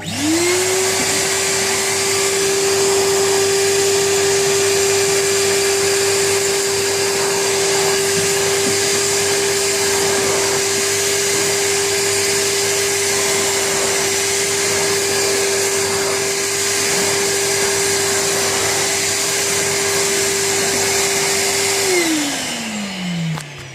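Charles wet and dry vacuum cleaner switched on and vacuuming a thick carpet: the motor comes up to speed within a moment and runs with a steady whine over a loud rush of air. Near the end it is switched off and the whine falls in pitch as the motor spins down.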